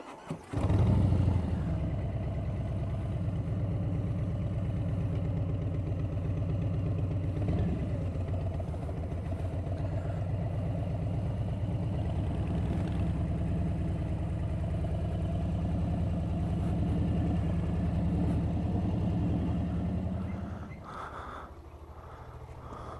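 Motorcycle engine running steadily at low speed, with an even beat of firing pulses. It cuts in suddenly just after the start and drops much quieter about 20 seconds in.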